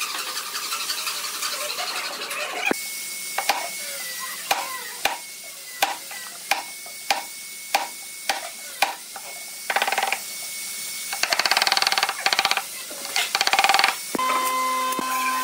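A chisel being struck into the corner of a pine frame: about a dozen sharp taps roughly every half second, then a few short bursts of rapid scraping. A steady hum starts near the end.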